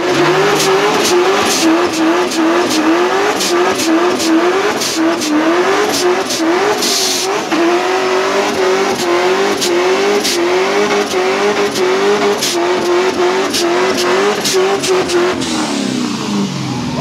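Car engine held at high revs during a burnout, its pitch rising and dropping over and over about twice a second as the driver works the throttle, with sharp pops throughout and tyres spinning on the road. The revs fall away near the end.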